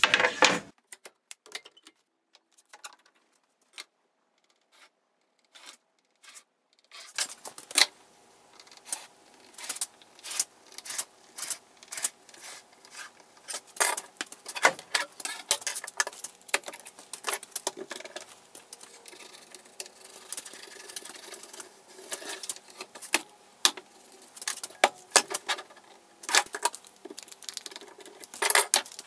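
Workshop handling noises as a wooden board is worked on a wooden workbench: a sharp knock as the board goes down, then a few quiet seconds, then from about seven seconds a long irregular run of clicks, knocks and rubbing from a steel rule and one-handed bar clamps against the wood.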